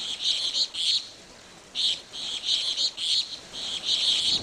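High-pitched chirping calls of wild animals in short, quick bursts, with a pause of under a second about a second in.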